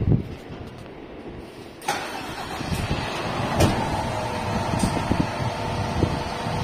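A thump, then about two seconds in a Hino fire tank truck's diesel engine starts and keeps running steadily, with a held whine over the engine noise and a few clicks.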